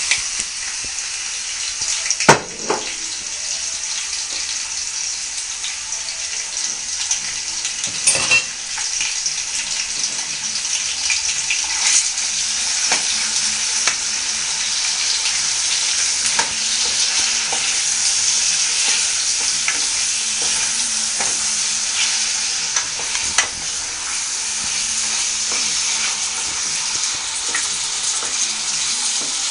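Diced pork sizzling steadily as it fries in hot oil in a skillet, with a wooden spoon stirring and scraping through it. A sharp knock sounds about two seconds in and another about eight seconds in.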